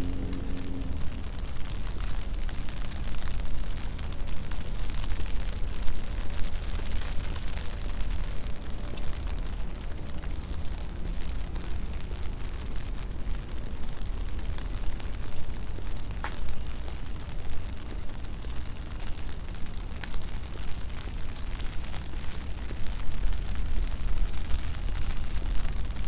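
Rainy city street ambience: a steady hiss of rain and tyres on wet pavement over a heavy, constant low rumble.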